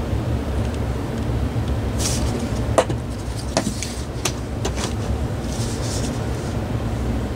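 A few sharp clicks and knocks, with brief rustles, from handling the fan motor and its parts, over a steady low hum; the loudest click comes about three seconds in.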